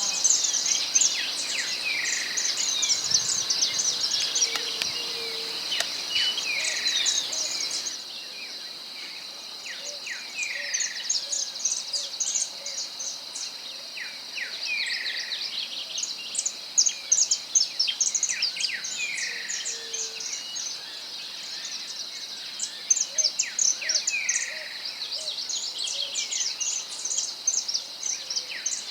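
Wild songbirds singing: many quick high chirps and a repeated short falling note every two or three seconds, over a steady high insect drone. There is a change of recording about eight seconds in.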